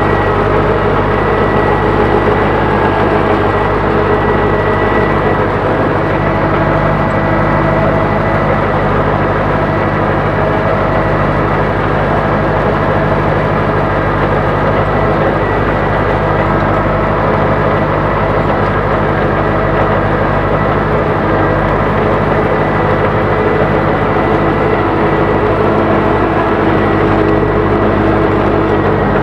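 Ursus tractor's diesel engine running steadily under load while ploughing, heard from inside the cab.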